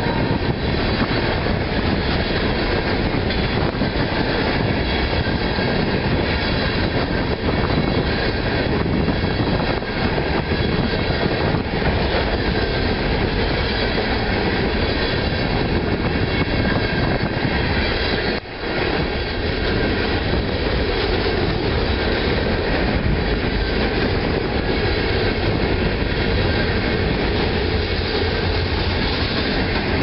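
Freight train of covered hopper cars rolling past close by: a steady rumble and rattle of steel wheels on the rails, with one short dip in level a little past halfway.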